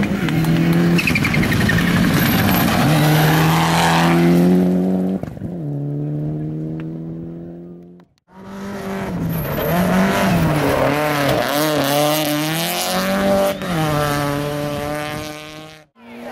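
Rally car engines at full throttle on a gravel stage. In the first few seconds one car runs hard, its pitch stepping down about five seconds in. After a brief cut about eight seconds in, a second run follows, with the engine note rising and falling repeatedly as the driver revs and lifts through the corners. The sound cuts off abruptly just before the end.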